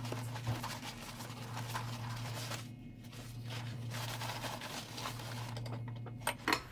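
A paper towel rubbed and wiped over a projector's plastic case and lens housing: a soft crinkling rustle with small clicks, over a steady low hum.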